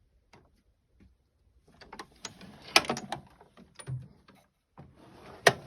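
Steel drawers of a Snap-on K260 tool chest sliding shut and open, with loose tools rattling and sharp metal clicks as a drawer stops, about two and a half seconds in and again near the end.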